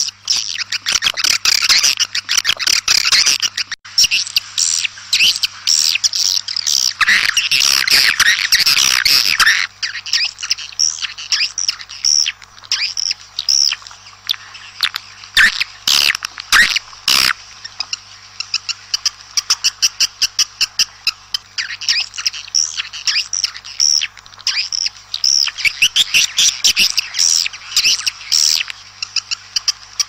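Swiftlets twittering and chirping in a dense, rapid chorus with sharp clicks, the kind of swiftlet call recording played to lure swiftlets into nesting houses. The chorus is thickest at first, thins out about a third of the way in and thickens again near the end, over a faint steady low hum.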